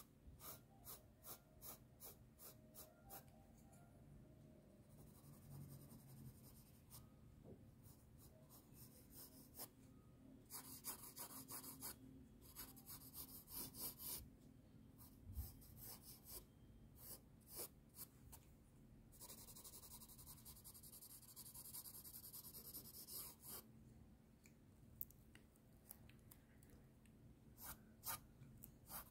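Pencil scratching on sketchbook paper, faint: quick short strokes several times a second, with a few longer stretches of continuous scratching.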